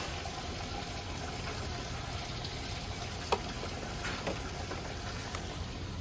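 Steady background hum and noise of a shop front, with light clicks of clear plastic food containers being handled and one sharp click about three seconds in.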